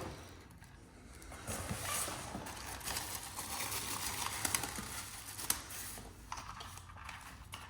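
Packaging of a smoke-alarm four-pack crinkling and rustling as it is handled, with scattered light clicks and one sharper click about five and a half seconds in.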